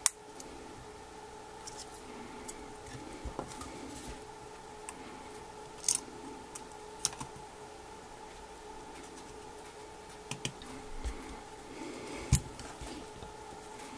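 Plastic spudger and fingertips tapping and clicking on an iPhone 3GS's metal-shielded logic board and frame during reassembly: scattered sharp clicks, the loudest right at the start and about twelve seconds in. A faint steady hum runs underneath.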